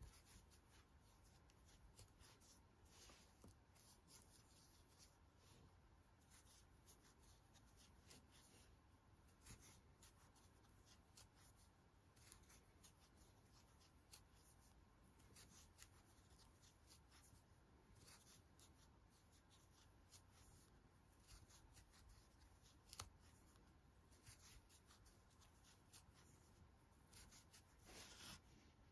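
Near silence with faint rustling and light clicking as a metal crochet hook draws yarn through stitches, working single-crochet increases.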